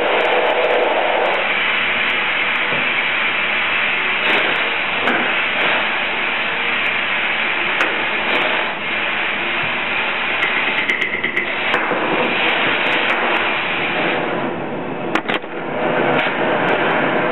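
Steady hiss of glassblowing gas burner flames, with a brief dip and a couple of sharp clicks about fifteen seconds in.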